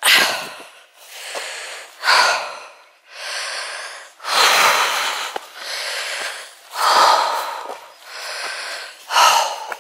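A woman breathing hard, puffing in and out about once a second: the laboured breathing of someone climbing a steep hill under a full pack.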